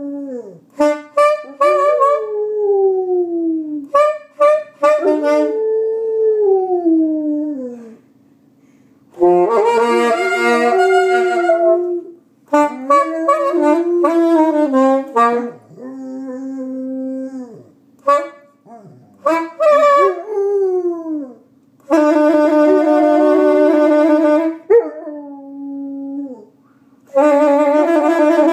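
A saxophone playing long held notes while a Rottweiler howls along, her howls sliding down in pitch, with a few short pauses between phrases.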